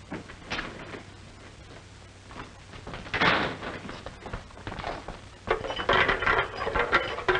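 Clanks and rattles of a barred jail cell door being worked, with scuffling: a short clatter about half a second in, a louder one around three seconds, and a longer, louder stretch near the end.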